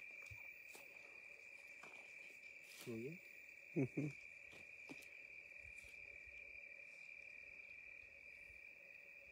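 Crickets trilling in one steady high note. About three and four seconds in, a few short low calls break in and are the loudest sounds.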